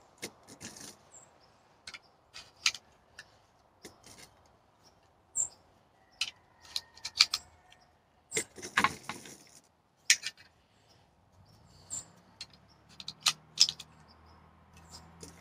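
Metallic clicks and clinks of .45 ACP cartridges being pressed one at a time into a 1911 pistol magazine, at an irregular pace, with a brief rattle about nine seconds in.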